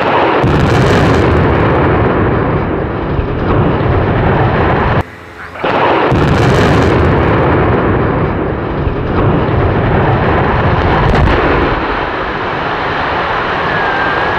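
Explosive demolition of a concrete motorway viaduct: the charges on the piers go off with a sudden heavy blast, followed by a long rumble as the piers and deck come down. The sound breaks off briefly about five seconds in and comes back just as loud, a second blast and rumble that fades a little toward the end.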